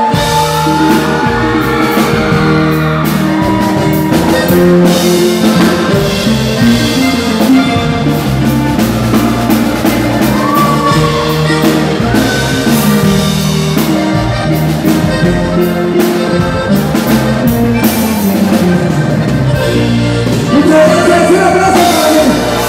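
A live regional Mexican band playing loud, with drum kit, bass and guitar; the full band comes in right at the start.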